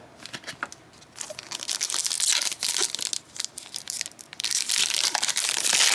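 Foil trading-card pack wrapper crinkling and tearing as it is ripped open, a dense crackling rustle that starts after a few light clicks and grows louder from about a second in.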